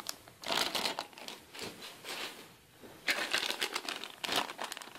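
Clear plastic bags crinkling as plastic model-kit sprues inside them are handled. The rustling comes in two bouts, with a lull in the middle.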